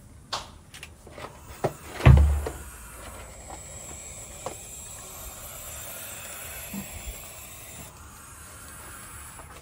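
A few clicks and knocks of handling, a loud thump about two seconds in, then a steady hiss from owl chicks.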